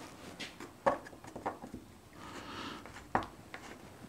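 Screwdriver tip clicking and scraping against old rusted screw heads in an aluminium window drip rail. There are scattered light clicks and taps, with a short scratchy noise around the middle.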